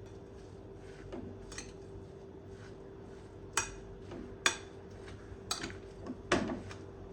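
A handful of sharp clicks and clinks of kitchen items being handled and set down, the loudest a little past the middle, over a steady low hum.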